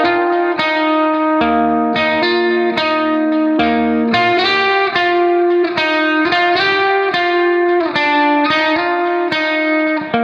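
Background music: a plucked guitar melody, one note after another in a steady run.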